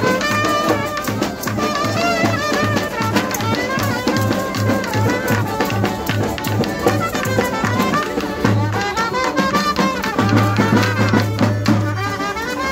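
Music with a steady drum beat and several melodic instruments playing over it.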